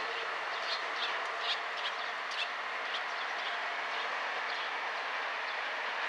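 KiHa 37100 diesel railcar running steadily as it pulls away down the line, its engine sound fading with distance. Birds chirp several times in the first couple of seconds.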